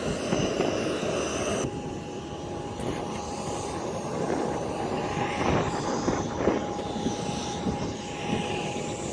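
Airliner jet engines running steadily, a low, even rush with a thin steady tone coming in about two seconds in.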